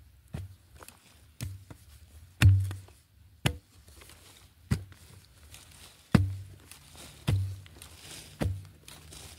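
A long-handled metal digging spade chopping into dry, root-filled soil about once a second, each stroke a sharp knock with a dull thud under it; the hardest strike comes about two and a half seconds in.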